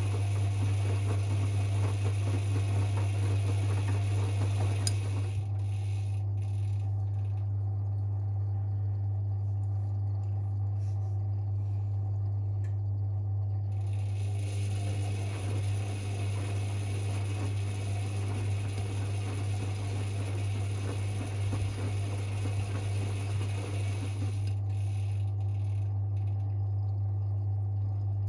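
Privileg 5020 washing machine mid-wash: the drum motor runs in spells under a steady low hum, stopping about five seconds in, starting again around fourteen seconds and stopping again near the end, as the drum turns and pauses. The motor has a worn sound, which the owner puts down to years of laundry service.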